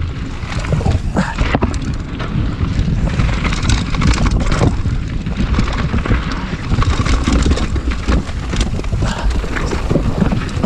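Mountain bike descending a rocky dirt trail at speed: wind buffeting the camera microphone over the rumble of tyres on loose stones and a steady clatter of knocks and rattles from the bike.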